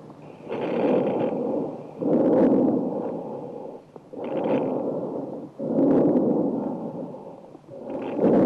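Lung sounds heard through a stethoscope: a steady rhythm of noisy breaths in and out, each lasting one to two seconds, about five in all.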